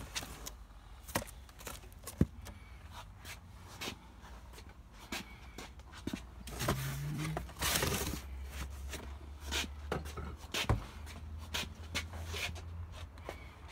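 Scattered footsteps, knocks and scrapes of someone moving about and handling boxes and fittings, over a steady low rumble, with a rustling scrape and a short hummed voice sound about seven seconds in.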